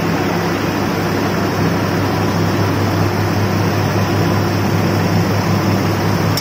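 Mini rubber-roll rice mill running steadily while hulling paddy: a loud, even machine drone with a low hum and a rushing noise over it.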